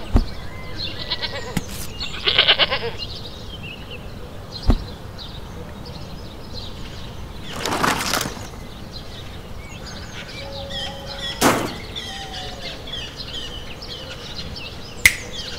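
Rocks and a cardboard roof being handled by hand: a few sharp knocks and a short scraping rustle. An animal bleats a few times near the start.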